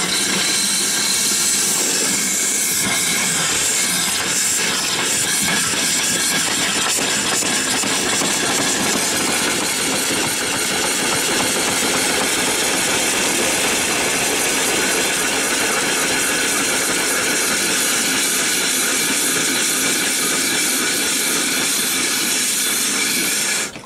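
Erie Steam Shovel Co. steam engine running steadily under steam, with a constant loud hiss of escaping steam.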